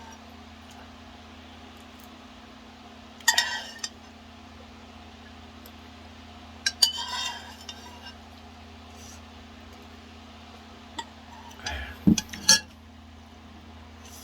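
Eating utensils clinking and scraping against a bowl or pot, in three short bursts a few seconds apart, over a steady low hum.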